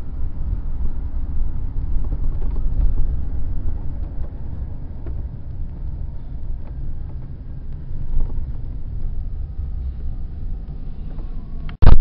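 Steady low road and engine rumble of a car, heard from inside the cabin while driving. Just before the end it is cut off by a sudden, very loud, distorted sound.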